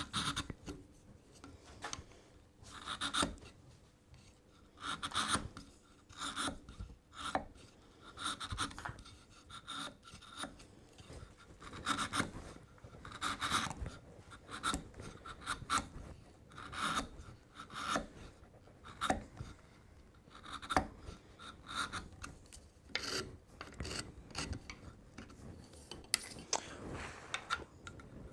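Bevel-edge chisel paring by hand at the walls of a dovetail socket, a long run of short, irregular scraping strokes about one a second as it shaves off the high spots before the joint is fitted.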